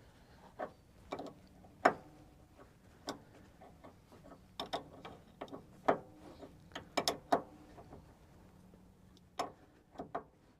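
Irregular metallic clicks and clanks of tools and sawmill parts being handled, about a dozen, some with a short ring. The loudest come about two seconds in and around six to seven seconds.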